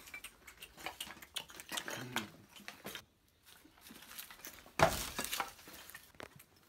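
Scattered clicks and crunches of footsteps on a floor littered with broken debris and dry leaves, with a loud thump about five seconds in.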